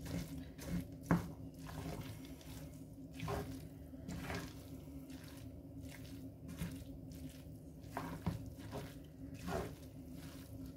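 Wooden spatula stirring and turning fried rice in a non-stick frying pan: soft, irregular scrapes and shuffles every half second or so, over a faint steady hum.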